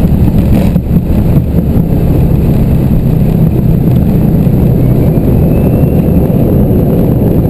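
Steady, loud low rumble in an airliner's cockpit as it rolls along the runway after landing: engine noise mixed with wheel and airframe rumble.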